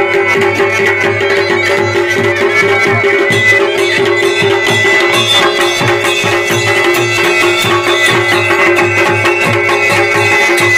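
Kumaoni folk band playing: dhol and damau drums beating a steady rhythm under the held drone and melody of a masakbeen, the Himalayan bagpipe.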